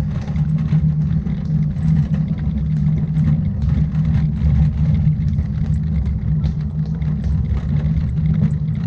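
Steady low rumble of a moving vehicle's engine and road noise, with faint scattered clicks and rattles.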